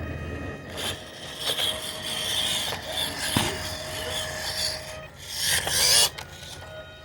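Irregular rubbing and scraping strokes, loudest about five to six seconds in, over a faint steady whine.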